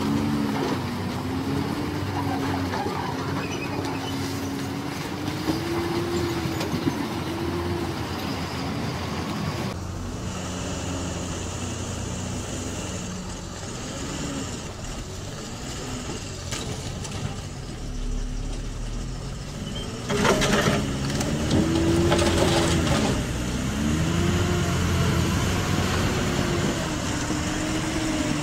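Heavy goods trucks' diesel engines labouring through deep mud, revving up and down over and over. There is a sudden burst of noise about twenty seconds in.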